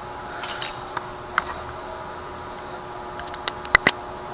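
Several sharp clicks and taps from hands handling the action-camera chin mount: one about half a second in, another a second later, and a quick group of three near the end, over a steady faint hum.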